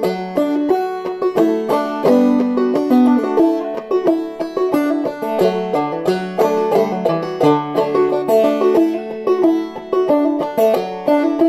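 Banjo played clawhammer style in open D tuning: a steady, rhythmic run of plucked notes and brushed strums of a simple tune.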